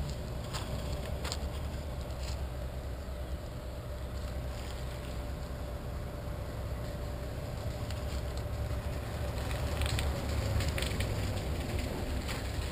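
Steady low outdoor rumble with a faint steady hum, overlaid by scattered light clicks and rustles from a handheld camera being moved about, a brief flurry of them near the end.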